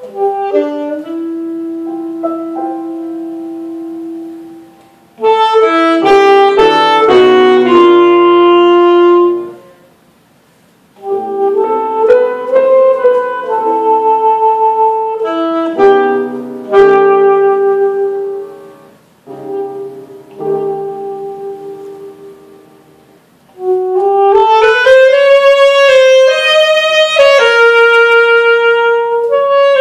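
Alto saxophone and grand piano playing a contemporary concert piece live. A soft held note opens, then louder saxophone phrases come in from about five seconds, with short breaks between phrases near ten and twenty-three seconds.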